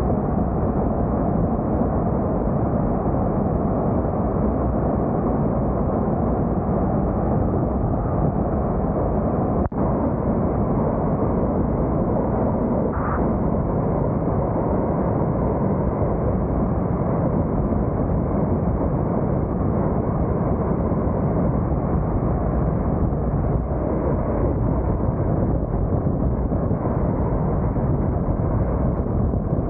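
Steady, heavy wind and road noise rumbling on a car-roof-mounted camera's microphone while the vehicle drives at speed. It is a muffled, even rush with no high end.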